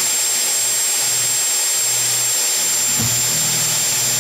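Hand-held electric drill running at speed with its bit boring through a PVC pipe: a steady, high-pitched motor whine.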